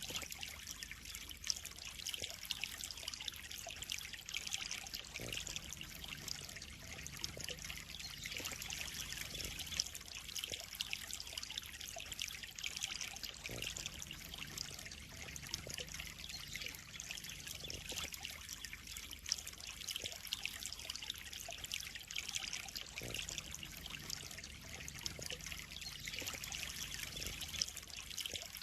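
Water trickling and splashing steadily into a pond: an even, continuous patter of small splashes.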